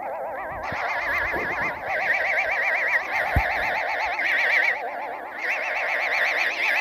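Several layered, warbling tones, each wobbling rapidly and evenly in pitch, overlapping in a dense, continuous wash, with a short low thump about three and a half seconds in.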